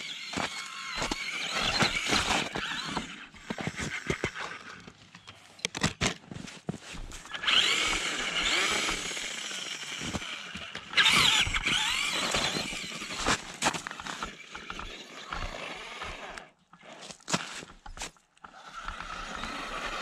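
Electric motor of a two-wheel-drive Traxxas Stampede RC truck whining as it revs up and down in bursts, loudest about seven and eleven seconds in. Scattered clicks and crunches run alongside it, and it drops away for a moment near the end.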